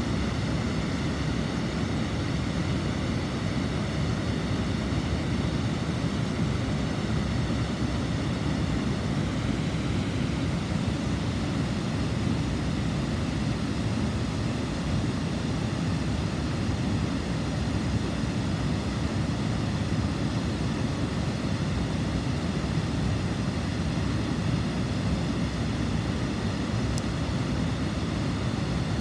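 Water pouring over a wide, shallow river weir: a steady, low rushing sound that does not let up.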